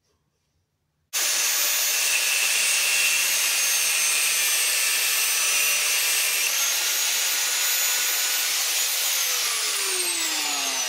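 Angle grinder starts about a second in and grinds the end off a steel starter motor pinion gear: a loud, steady high whine with hiss. Near the end the motor's pitch falls as it spins down.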